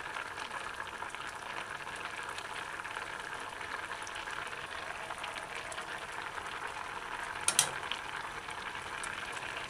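Thick brown stew gravy bubbling and sizzling steadily in a metal saucepan as it reduces and thickens. A short clink, a spoon against the pot, near the end.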